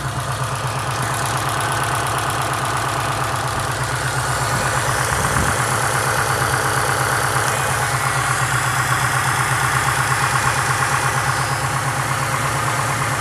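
2005 Subaru Impreza WRX STI's turbocharged 2.5-litre flat-four idling with a steady, rapid rhythmic knock. The owner takes the knock for piston slap from a blown short block.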